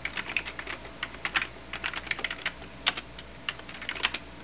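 Keystrokes on a computer keyboard as a shell command is typed. The clicks come in quick, irregular runs with short pauses between them.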